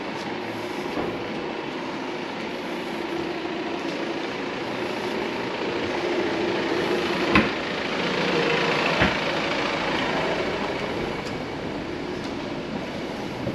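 A Volvo XC60 SUV driving slowly over cobblestones and passing close by, engine and tyre noise growing to a peak about eight to nine seconds in, then fading. Two sharp knocks come as it passes.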